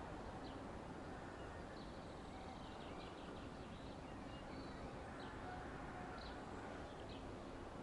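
Quiet outdoor ambience: a steady low background noise with scattered short bird chirps throughout.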